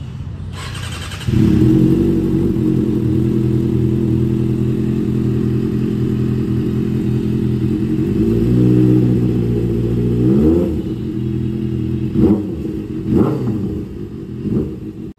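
Kawasaki Ninja ZX-6R's 636 cc inline-four engine starting about a second in, then idling steadily. Near the end it gets about four short throttle blips.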